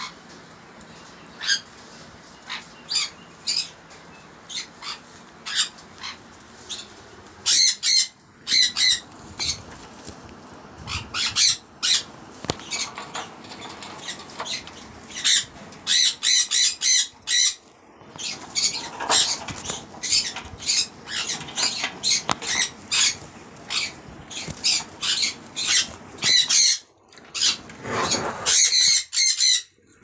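Caged pineapple green-cheeked conures squawking: short harsh calls, often in quick runs of several at a time, repeated throughout.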